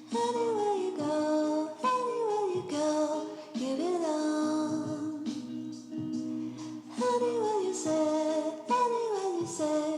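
Background music with a female singing voice, melodic phrases that slide downward over sustained chords.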